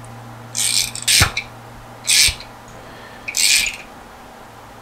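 Socket ratchet clicking in short bursts, four strokes about a second apart, as plugs and a fitting are tightened into the ports of an oil filter sandwich plate, with one sharp knock a little over a second in.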